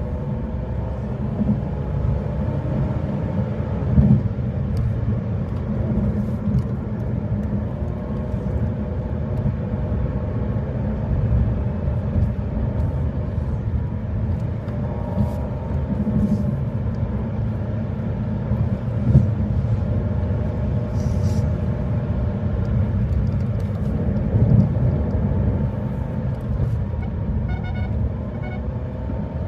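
Car driving on a highway: steady low road and engine rumble.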